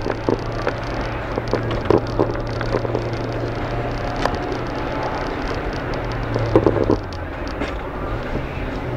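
Renault 19 1.4 Energy's four-cylinder engine pulling steadily, heard from inside the cabin with road noise and scattered light knocks. About seven seconds in the engine note eases off and gets a little quieter.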